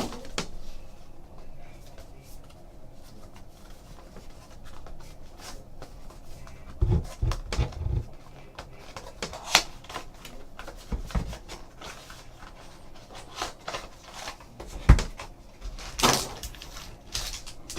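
A trading card box being unsealed and opened by hand: cardboard and wrapper rustling with scattered clicks. There are a few low thumps about halfway through and a sharp knock near the end.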